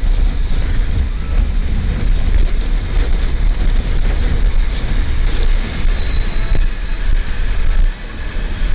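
Steady wind and road noise from a moving vehicle on the road, with a deep low rumble; a brief high squeal sounds about six seconds in.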